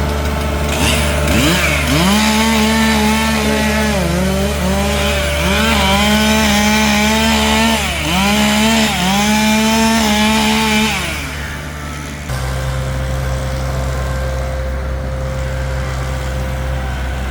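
Chainsaw running at high revs and cutting through wood from about two seconds in until near eleven seconds, its pitch dipping several times as it bogs in the cut and then recovering. A steady engine drone runs underneath.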